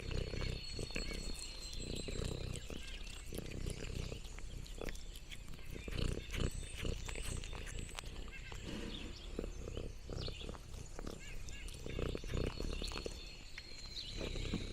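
Domestic cat purring close to the microphone, the rumble swelling and fading with each breath, with small sharp clicks over it.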